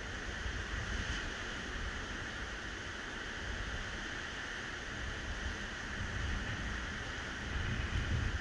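Wind blowing across the microphone in an uneven low rumble, over a steady hiss of Baltic Sea surf breaking on the beach; the wind gusts harder near the end.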